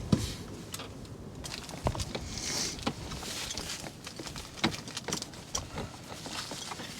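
Scattered light clicks and metallic knocks from hand tools and bolts as a new belt is fitted and bolted onto a harvester header, with a sharp knock at the very start.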